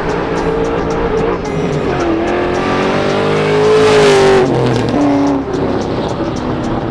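Cammed V8 engine of a Holden VY Commodore SS ute accelerating. Its pitch climbs for a couple of seconds and is loudest around four seconds in, then drops sharply, as at a gear change.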